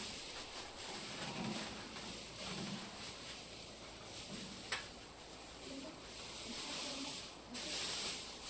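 Outdoor ambience: a steady high hiss that swells and fades a little, with one sharp click about halfway through.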